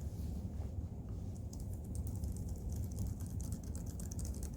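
Rapid typing on a Logitech Craft keyboard's concave keys: a fast run of soft, fairly quiet key clicks over a steady low hum.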